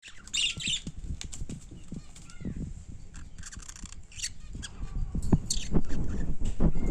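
Budgerigar chirping in short, scattered bursts, with low thumps and rustling underneath that grow louder in the second half.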